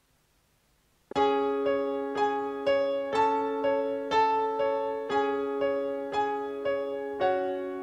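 About a second of near silence, then a piano introduction to a song begins: single notes struck about two a second over held lower notes.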